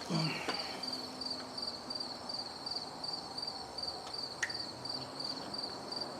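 A steady high insect chirping, about two chirps a second, with a few light clicks from hands working in the engine bay.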